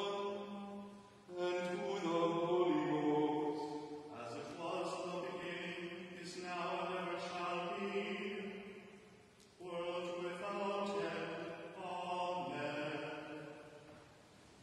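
Liturgical chanting of a Mattins service: text sung in long phrases on held, steady pitches, broken by short pauses for breath, and fading out just before the end.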